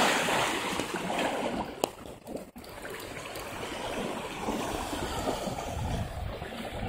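Shallow water splashing and lapping at the shoreline, with one sharp click about two seconds in.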